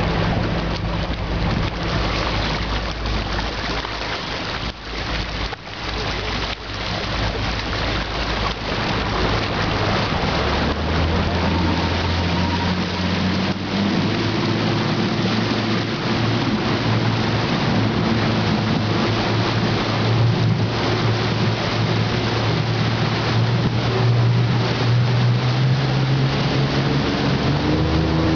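A 200-horsepower speed boat under way, with wind buffeting the microphone and water rushing past the hull. The engine's drone comes through about ten seconds in and steps up in pitch twice as the boat picks up speed, then again near the end.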